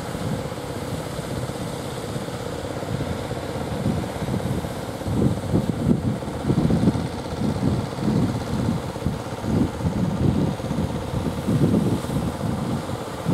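Wind buffeting the microphone in irregular gusts, growing stronger about a third of the way in, over the steady running hum of a wooden outrigger fishing boat's outboard motor.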